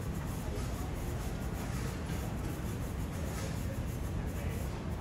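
Steady background noise of an airport terminal hall: a constant low rumble of ventilation and distant activity.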